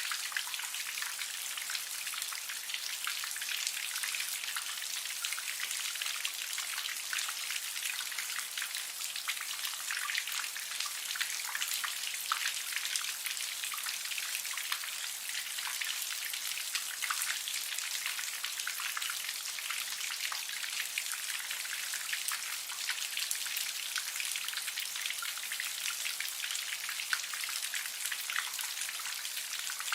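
Light rain shower: a steady, even patter of many small raindrops, a fine hiss full of tiny ticks with no low rumble.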